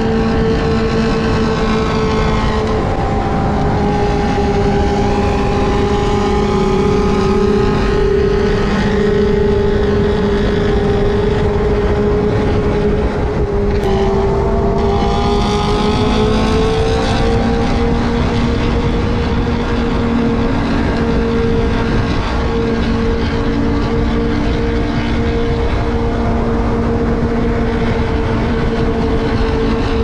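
Benelli TNT600i's inline-four engine running at steady cruising revs under a rushing wind noise. The pitch sags slowly, breaks briefly about halfway through, then climbs a little and holds steady.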